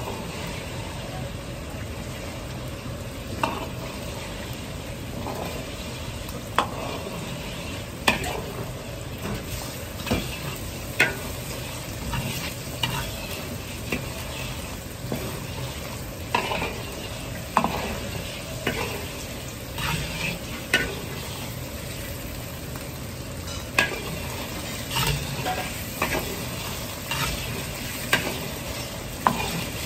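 Egg and sacha sauce frying in hot oil in a large iron wok, sizzling steadily, while a metal ladle stirs it with sharp clinks and scrapes against the wok every second or so, more often in the second half.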